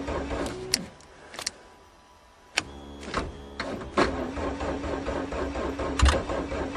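Car's starter motor cranking the engine on a nearly dead battery, a steady whine without the engine catching. It stops just under a second in, gives a click and a short stuttering crank about two and a half seconds in, then cranks steadily again from about four seconds in.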